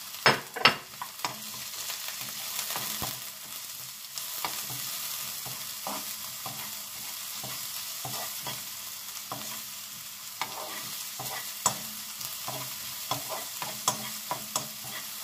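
Sliced onion and garlic sizzling in hot oil in a nonstick pan, stirred with a spatula that scrapes and clicks against the pan, with a few sharp knocks about half a second in.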